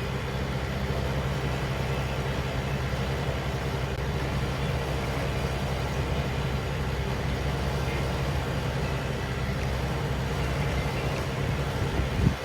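A vehicle engine idling with a steady low hum, and a single short knock near the end.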